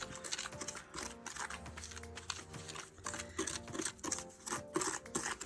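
Stir stick scraping and clicking irregularly as it mixes gritty beach sand into a thick water-based resin-like medium in a bowl, with faint background music.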